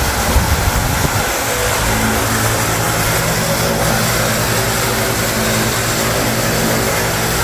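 Ventisilva VPL 65 cm wall fan running, its 150 W motor humming steadily under a loud, even rush of air from the blades. The low end is rougher for the first second before the hum settles steady.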